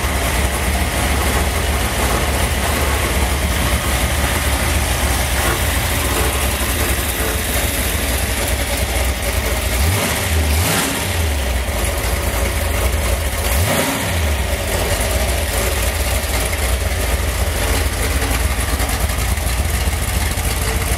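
Freshly built 463 cubic inch Pontiac V8 crate engine running steadily on a test stand at about 1000 rpm, with two short throttle blips a few seconds apart about halfway through.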